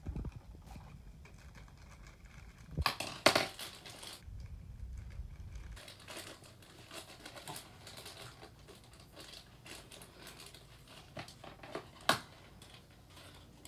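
Plastic blind-bag wrapper crinkling and crackling as it is handled and opened by hand, with louder crackles about three seconds in and again near the end.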